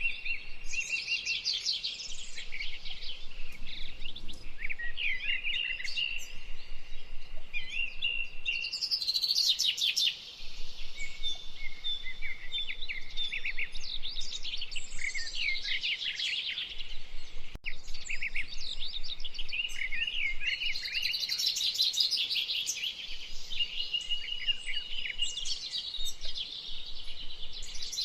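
Songbird singing a long, varied song of rapid chirps, trills and short whistled notes that runs almost without a break.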